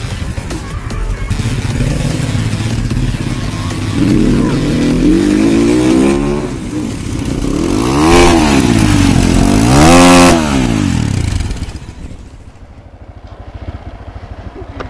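Crossfire GR7 250 dirt bike's engine running and being revved through its exhaust. A slower rev comes about four seconds in, then two sharp blips near eight and ten seconds, each rising and falling in pitch. It settles back to a quieter idle near the end.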